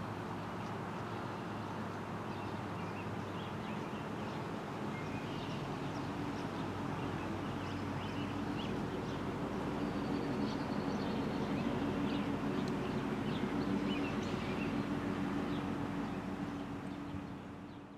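Outdoor ambience: birds chirping over a steady low hum, which fades out near the end.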